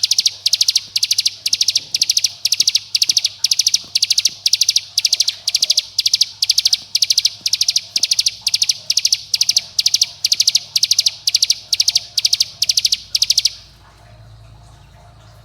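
Ciblek gunung giving its rapid 'bren' trill call, short buzzy phrases repeated evenly about two and a half times a second, which stop abruptly near the end. This is the contact-and-challenge call used as a lure to get other ciblek gunung to answer and sing.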